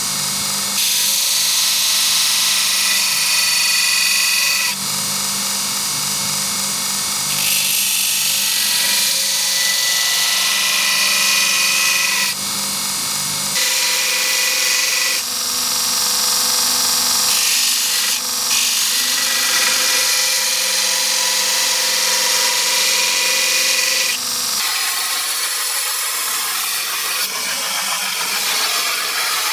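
A power tool with a motor running continuously with a high whine, its sound shifting abruptly every few seconds.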